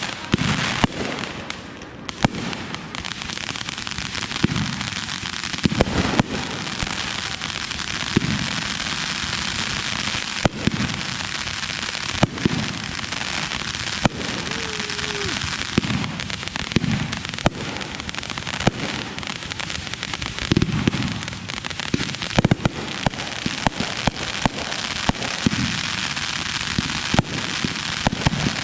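Consumer fireworks going off in rapid succession: a continuous crackle with many sharp bangs and repeated low thuds.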